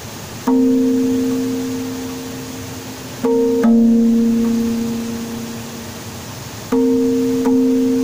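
Slow instrumental background music, keyboard-like: soft notes struck every one to three seconds, each left to ring and fade away.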